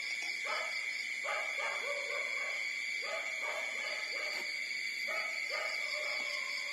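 Young puppies whining and yipping, short high cries coming a few at a time about every second.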